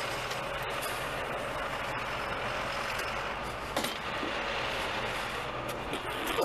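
A vehicle engine idling steadily, with a single short knock a little under four seconds in.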